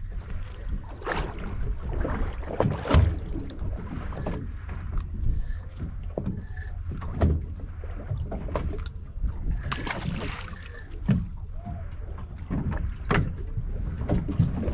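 Wind buffeting the microphone and water slapping against a boat's hull, with scattered short splashes and knocks at irregular moments.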